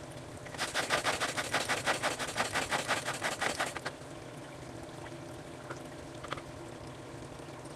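Hand-operated food chopper chopping fried onions, a fast, even clicking rattle of about eight clicks a second that runs for about three seconds, starting just under a second in. A couple of faint clicks follow.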